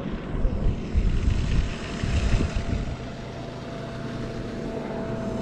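Wind buffets the microphone in loud, gusty low rumbles during the first half. An outboard motorboat engine drones steadily underneath and comes through more evenly after the gusts die down.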